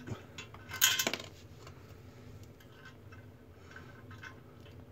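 Metal nut being threaded by hand onto a toilet closet bolt: a quick cluster of small metallic clinks about a second in, then faint scattered ticks as it is turned down.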